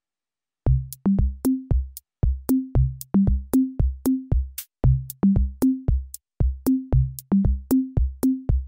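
Background music: an electronic drum-machine beat with a short low bass note on each hit, the bass stepping up in pitch in a repeating pattern. It starts under a second in, after silence.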